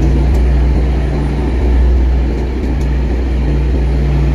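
A river cargo barge's diesel engine running steadily, a low, even hum that holds one pitch.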